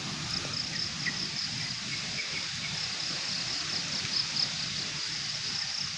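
Insects chirping in a steady, pulsing high trill over a steady low rushing background noise.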